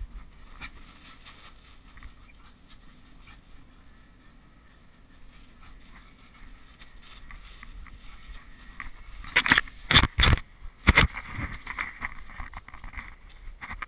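Tent canvas being handled as a lavvu is raised, with rustling and scuffing throughout. About nine and a half seconds in comes a short run of loud, close rustles and flaps, then steadier rustling.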